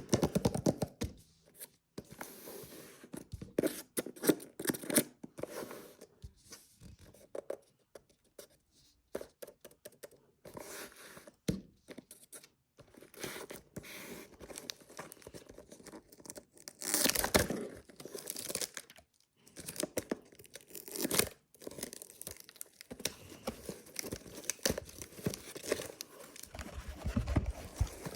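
Handmade blind box packaging being torn open and crinkled by hand: irregular, stop-start rustling and crackling, with a couple of longer tearing strokes past the middle.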